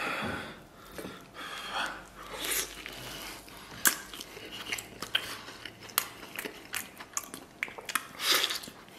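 A man biting and tearing soft stewed lamb rib meat off the bone and chewing it, with many short sharp clicks of bites and mouth sounds.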